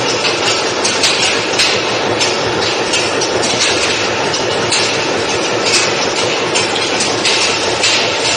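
Anyang 50 mm skew rolling mill running, its two rolls forming a red-hot steel bar into balls: a loud, steady grinding clatter that pulses about twice a second.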